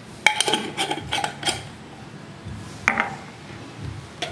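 Quick metallic clinks and clicks of a spoon against spice containers while spices are measured out: a rapid run of them in the first second and a half, then one more clink near three seconds in.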